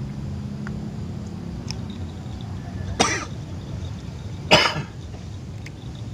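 A person coughs twice, about a second and a half apart, the second cough louder, over a steady low rumble.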